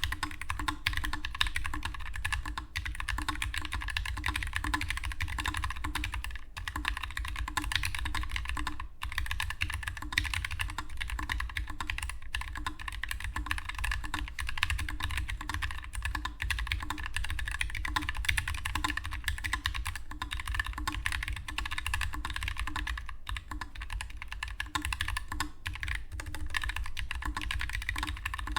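Fast continuous typing on a Keychron S1 low-profile mechanical keyboard with Gateron Low Profile Brown tactile switches and stock stabilisers: a dense run of keystroke clacks with a few brief pauses.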